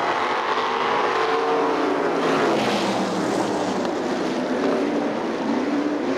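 A pack of winged dirt-track sprint cars racing at full throttle, their V8 engines rising and falling in pitch as they pass.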